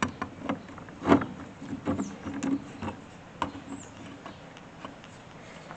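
Irregular metal clicks and knocks from the belt-tension adjuster of a Vermeer round baler being turned by hand to bring the hydraulic belt tension back up. The loudest knock comes about a second in.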